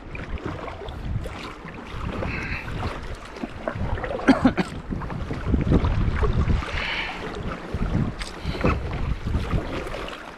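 Wind buffeting the microphone with a low rumble, over water splashing as a kayak paddle dips in, stroke after stroke every couple of seconds, on choppy sea.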